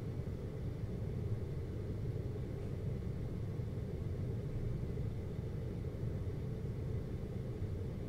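GoldStar window air conditioner running with a steady low hum.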